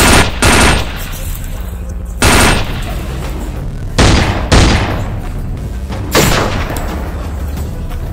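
Gunshots from a long gun: six loud shots in an uneven rhythm, some in quick pairs about half a second apart, each with a short echoing tail.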